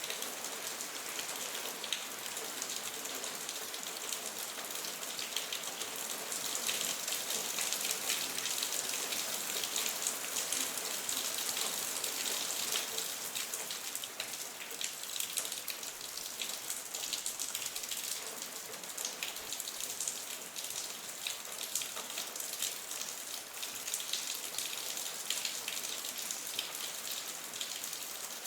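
Steady rain, with a dense pattering of individual drops ticking close by over the even hiss of the downpour.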